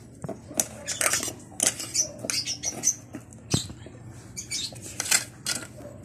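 A person chewing and smacking close to the microphone while eating, in a quick, irregular run of wet mouth clicks and smacks. There is a sharp knock about three and a half seconds in.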